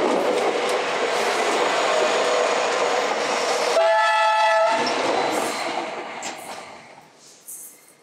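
Passenger train passing close by with a loud, steady rush of wheels on the rails. About four seconds in it gives a short horn blast of several tones, about a second long. The sound then fades away as the train moves off.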